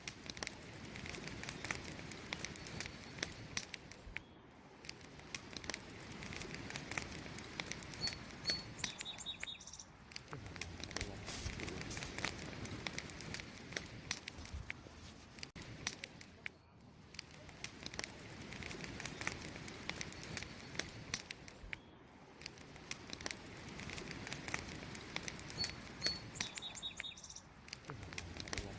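Wood campfire crackling, with a steady stream of small pops and snaps over the low rush of the flames. A faint bird chirps briefly about eight seconds in and again near the end.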